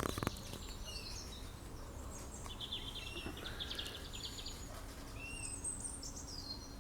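Small songbirds chirping and twittering in short high calls, with a rapid trill about halfway through, over a steady low background rumble of road traffic.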